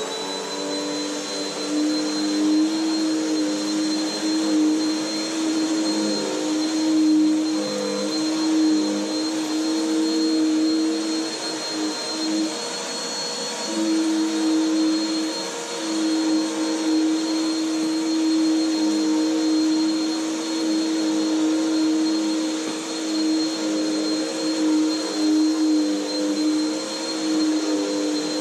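Bissell PowerClean Swivel Rewind Pet upright vacuum running on its carpet setting: a steady high motor whine over a lower hum and rushing air. The loudness wavers a little and the hum drops briefly about halfway through.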